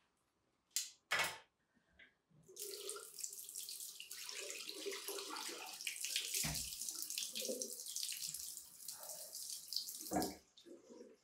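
Bathroom washbasin tap running with water splashing in the basin as someone washes under it. Two sharp knocks come about a second in, the water starts about two and a half seconds in and shuts off about ten seconds in with a knock.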